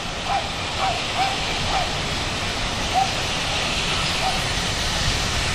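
GWR Manor-class 4-6-0 steam locomotive 7828 drifting into a station with its train: a low rumble of wheels and a hiss of steam that grows toward the end. Short squeaks come several times a second at first, then only now and then.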